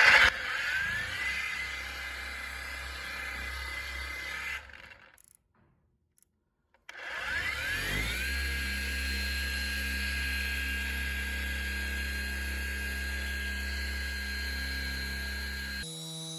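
DeWalt cordless dual-action polisher with a microfiber pad working compound into car paint. Its motor winds up to a steady whine, runs about four seconds and stops, then after a short pause winds up again and runs steadily until it cuts off near the end.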